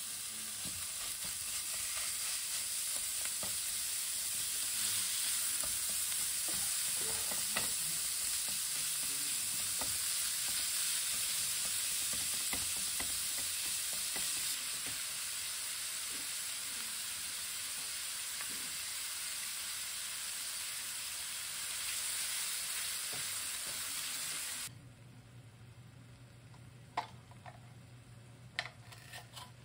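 Ground meat sizzling as it fries in a nonstick frying pan, stirred and broken up with a silicone spatula. About 25 seconds in the sizzle cuts off suddenly, leaving a low hum and a few light clicks.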